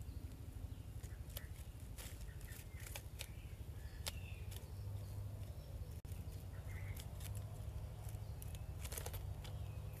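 Outdoor ambience: a steady low hum with many scattered small clicks and rustles and a few faint short chirps.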